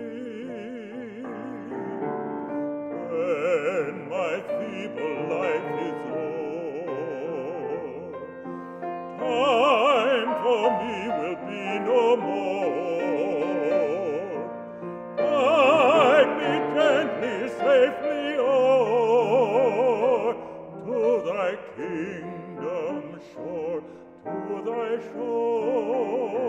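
A man singing a gospel hymn in a trained, operatic style with wide vibrato, accompanied by a grand piano. The singing swells louder in the middle phrases.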